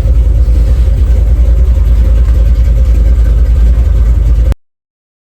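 1970 Chevy Nova's engine idling with a loud, steady low rumble, which cuts off abruptly to total silence about four and a half seconds in.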